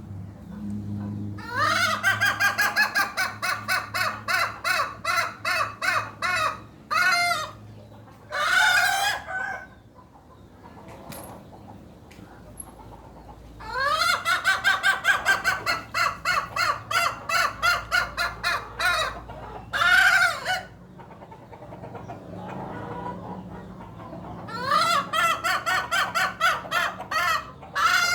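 A hen calling in an unusual, strange-sounding way: three long bouts of rapid repeated cackling notes, about three a second, each bout followed by one or two longer, separate notes.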